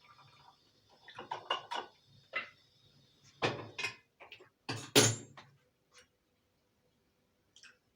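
Knocks and clatter: a quick run of light clicks, then two louder knocks about three and a half and five seconds in, the second the loudest, followed by a couple of faint ticks.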